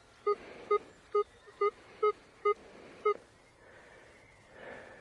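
Minelab Manticore metal detector beeping in a steady run of short, identical tones, about two a second, stopping about three seconds in. It is signalling a small metal target near the top of a freshly dug plug.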